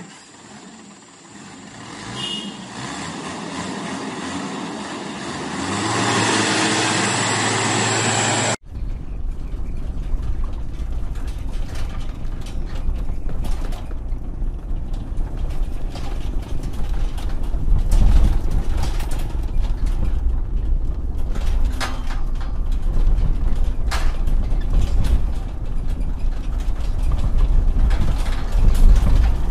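A pickup truck and motorbikes driving slowly over a rutted, muddy dirt road: a steady low rumble with scattered knocks and clatter. It comes in with an abrupt cut about eight and a half seconds in, after an opening stretch of a different sound that grows louder.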